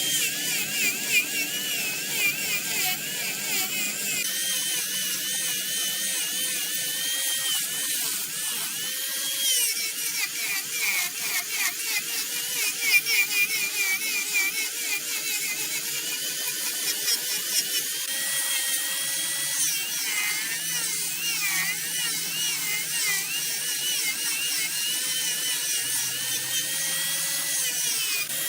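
Wood lathe running with a tool cutting into the spinning wood: a high, wavering whine over a steady hiss.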